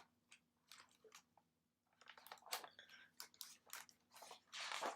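Faint rustling and small clicks of a picture book's paper pages being handled and turned, with a longer rustle near the end.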